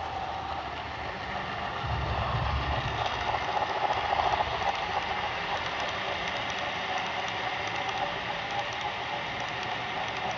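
Model steam locomotive pulling a freight train of flatcars and hoppers past, with a steady rumble of wheels on the track and the running motor. It is loudest about two to five seconds in as the locomotive goes by, then the cars roll past with faint clicking.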